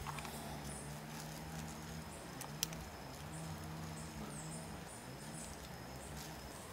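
An Ulanzi clip-on camera cooling fan is handled and snapped onto the back of a Sony ZV-E1 mirrorless camera, with one sharp click about two and a half seconds in. Behind it are a low wavering hum and faint, quick high chirps.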